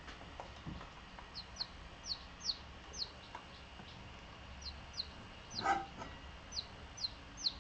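A baby chick peeping: about a dozen short, high, falling peeps, often in quick pairs. There is one brief louder sound about three quarters of the way through.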